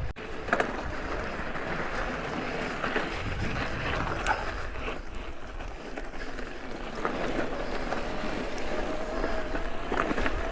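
Mountain bike rolling over a dirt trail: steady tyre and wind noise with scattered small knocks and rattles from the bike, and a faint steady whine in the second half.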